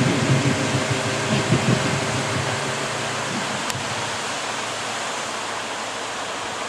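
Steady hissing wash of breaking surf and whitewater in the shallows.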